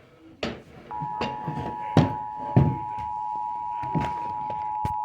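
Emergency Alert System two-tone attention signal (853 and 960 Hz sounding together) coming on about a second in and holding steady, sounding the alert for a Required Monthly Test. Several sharp knocks and thumps in the room land over it, the loudest about two seconds in.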